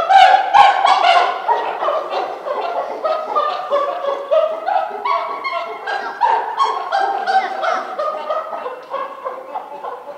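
Chimpanzees calling: a rapid run of loud pitched hoots and barks, several calls a second and stepping up and down in pitch, tapering off toward the end. This is the excited calling of males impatient for their evening feed.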